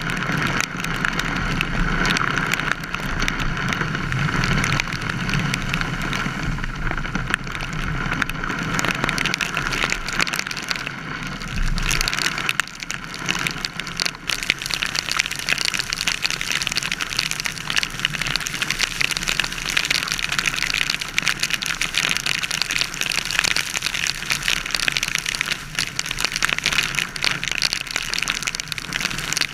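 Heavy rain pelting a car's windshield and roof while driving, a dense steady patter over low road and tyre noise.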